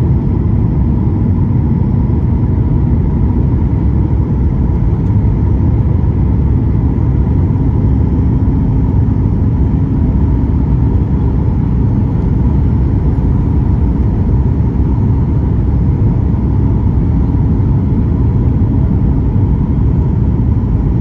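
Steady cabin roar of a Boeing 737 MAX 8 on final approach, heard from a window seat beside its CFM LEAP-1B engine: engine and airflow noise with a faint steady tone running through it.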